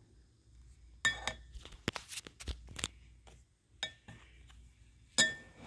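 A plastic spatula stirring foam-bead slime in a glass bowl: irregular wet clicks and knocks, with a few clinks that ring briefly where the spatula strikes the glass.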